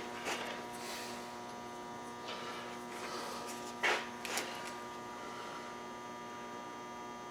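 Steady electrical hum, with a few short scuffs or clicks; the loudest comes about four seconds in, followed closely by a second.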